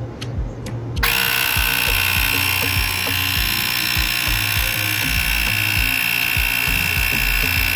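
Cordless portable air compressor switching on about a second in and running steadily with a high whine, pumping air into a garden pump sprayer to build pressure.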